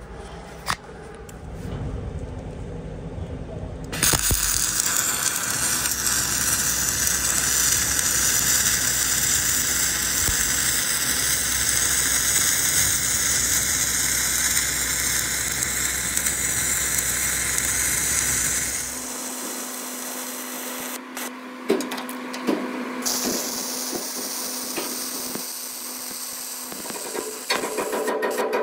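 Dual-shield (gas-shielded flux-cored) wire welding arc on structural steel: a steady, dense crackling hiss starts about four seconds in. Some fifteen seconds later it turns thinner and more sputtering, with a faint steady hum underneath.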